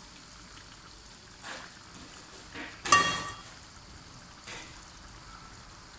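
Stew simmering faintly in an uncovered pan on the stove. About three seconds in there is one sharp metallic clink of cookware with a brief ring.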